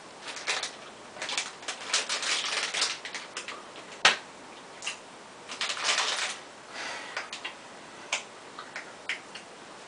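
Clear plastic candy bag being handled, crinkling and rustling in irregular bursts with scattered clicks and one sharp tick about four seconds in.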